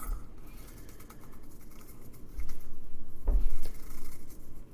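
Shaving brush working cream into a lather on a face: soft rubbing and swishing of bristles on skin, louder in the second half, with a couple of dull low bumps.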